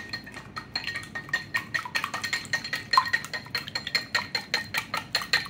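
A silicone-coated wire whisk beating a raw egg in a small ceramic bowl: fast, even clicking taps against the bowl, about six strokes a second, over a faint steady ring.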